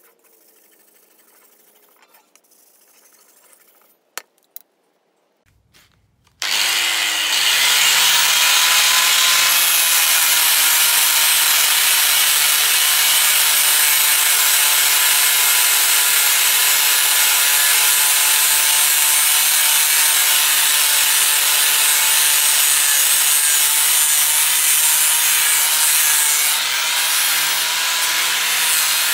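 Angle grinder with an abrasive flap disc starting up about six seconds in, its pitch rising as it spins up, then running steadily as it grinds rust off a steel sword blade. Before it starts there are only a couple of light clicks.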